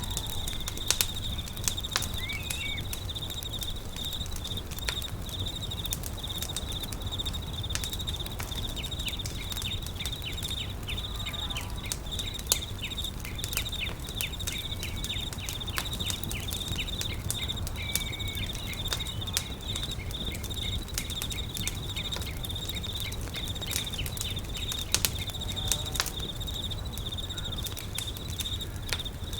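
Campfire crackling, with frequent sharp pops and snaps over a low rumble, against a steady high-pitched insect chirring and a few faint short chirps.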